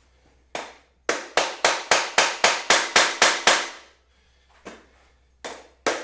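Rails of a PVC-panel reptile enclosure being tapped down into place: one knock, then a quick even run of about ten knocks at roughly four a second, and another knock near the end that starts a new run.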